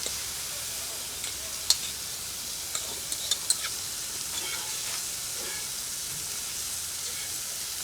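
Chopped wild mushrooms sizzling steadily as they fry in a pan, with a few sharp clicks about two to three and a half seconds in.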